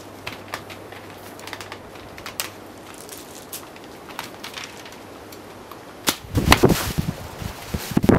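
Short sharp clicks of a 70-pound longbow being shot, the bowstring releasing and arrows striking the target. About six seconds in, heavy wind gusts buffet the microphone and are the loudest sound.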